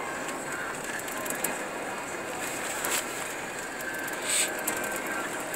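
Steady road and tyre noise inside the cabin of a Honda Passport driving over a snow-covered road, with a few light clicks and a short hiss about four seconds in.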